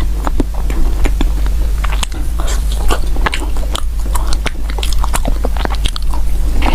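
Close-miked mouth eating sounds: biting and chewing food, with many quick, sharp, wet clicks and crunches, over a steady low hum.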